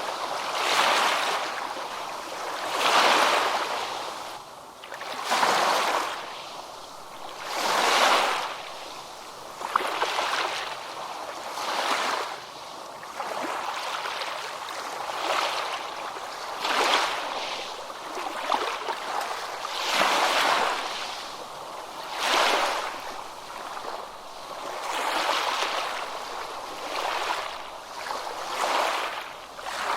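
Ocean waves breaking and washing on a beach, the surf swelling and easing every two to three seconds.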